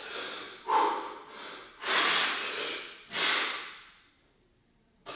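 A man breathing heavily in and out while holding a flexed bodybuilding pose: four loud, rushing breaths in the first four seconds.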